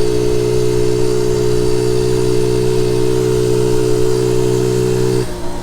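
Honda Z50 J1 monkey bike's 49cc four-stroke single-cylinder engine running at a steady, constant speed while riding. About five seconds in, the throttle closes and the engine note drops away and falls in pitch.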